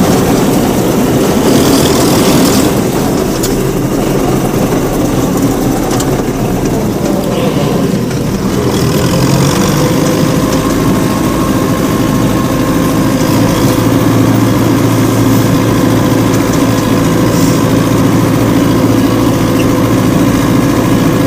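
Homemade minitractor's engine running steadily while driving, a loud, even drone. The level dips slightly about eight seconds in.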